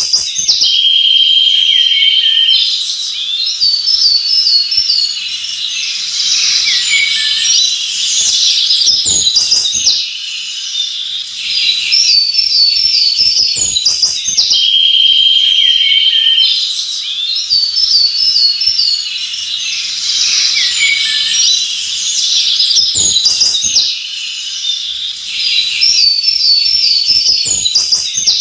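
Several songbirds chirping, whistling and trilling together over a steady high hiss, a forest birdsong ambience. The same stretch of song repeats about every 13 to 14 seconds, as a loop.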